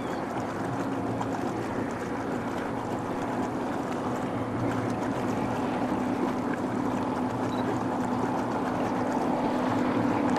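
Electric speed-record hydroplane running flat out across the water: a steady rushing noise with a low hum, growing slowly louder as the boat comes closer.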